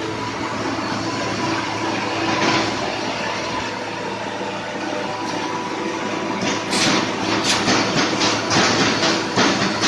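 Automatic wire mesh welding machine running with a steady hum and noise. From about six and a half seconds in it adds a quick, regular series of clacks, about three a second, as the welding head cycles, spot-welding the cross wires to the line wires.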